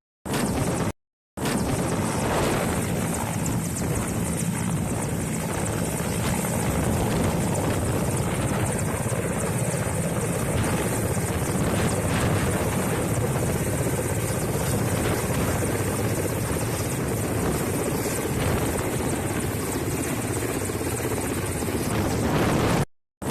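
Helicopter flying, its rotor and engine running steadily.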